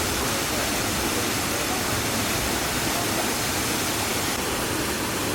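Waterfall rushing steadily, an even wash of falling-water noise.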